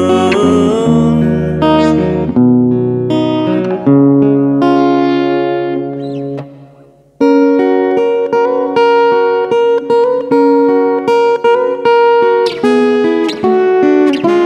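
Acoustic guitar instrumental break. A last held sung word fades at the start, the chords ring and die away to a brief hush about seven seconds in, then picked chords start again suddenly.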